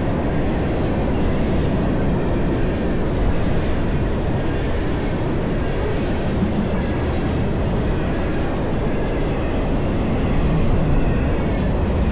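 Freight train passing at speed: a steady, loud noise of cars rolling on the rails.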